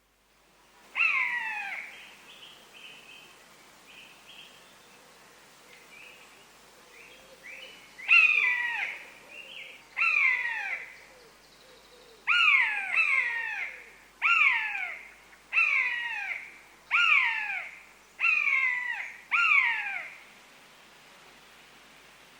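Common buzzard calling: a series of about ten loud, high mewing calls, each sliding downward in pitch. After a first call and a few faint ones, the calls come every second or so.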